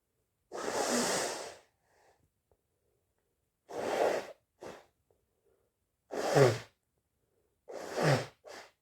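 A person sneezing in a run of about four sneezes, roughly two seconds apart, the later ones with a falling pitch. A short sniff follows some of them.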